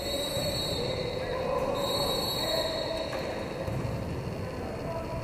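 Referee's whistle in a roller hockey match blown twice, one long blast and then a shorter one about two seconds in, over the echoing noise of skates on the rink.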